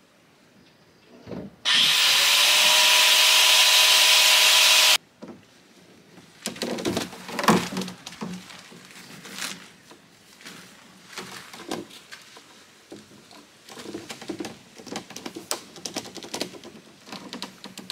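Tarp rustling and PVC pipes knocking and clattering as a tarp canopy is fitted over a PVC pipe frame. Near the start, a loud, steady hiss begins abruptly and cuts off sharply about three seconds later; it is the loudest sound here.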